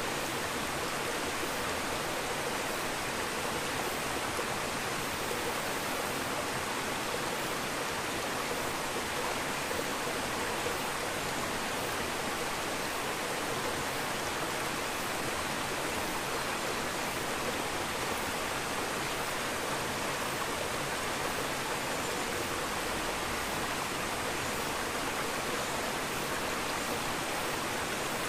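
Steady rushing, bubbling water noise from an aquarium's air-stone bubble curtain.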